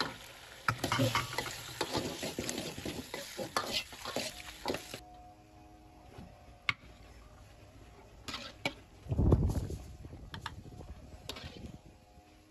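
Shrimp sizzling in ketchup sauce in a wok while a metal ladle stirs and scrapes against the pan. About five seconds in the sizzling stops abruptly, leaving a few sharp metal clinks of the ladle and plate and a dull thump a little past the middle.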